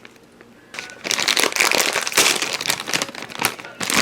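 Plastic snack packaging crinkling as it is handled and opened: a dense run of rapid crackles that starts under a second in.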